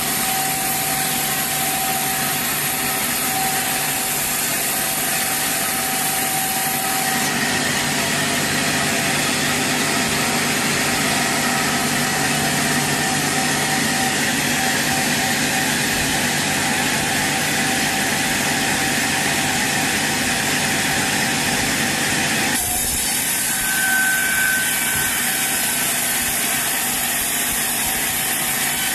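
Sawmill saw running through a large teak log, a steady mechanical run with a dense hiss of cutting. About three quarters of the way in the hiss drops away suddenly, leaving a duller running note, and a brief squeal follows.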